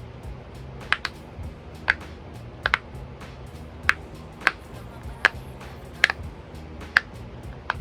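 Silicone rhinoceros-shaped pop-it fidget toy having its bubbles pressed one at a time: a dozen or so short, sharp pops at about one to two a second, now and then two in quick succession, on the quiet side.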